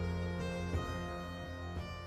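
Instrumental intro music with sustained, keyboard-like notes struck every second or so, gradually fading out near the end.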